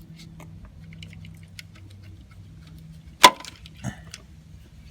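Small clicks and taps of hand tools and parts being handled while a transmission neutral safety switch is unbolted, with one sharp clack a little past three seconds in and a softer one just after, over a faint steady hum.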